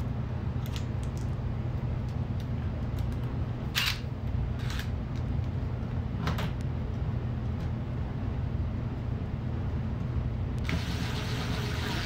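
DeWalt cordless impact driver tightening a mounting-plate screw into the ceiling: a few short clicks, then near the end a second-and-a-half burst of rapid hammering as the screw is driven home, over a steady low hum.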